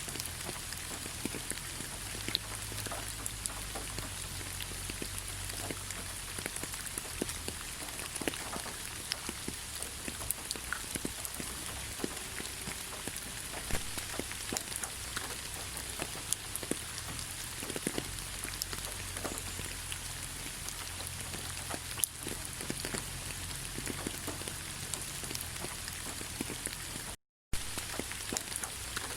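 Steady rain falling, an even hiss broken by many scattered, sharp hits of individual drops. The sound cuts out for a split second near the end.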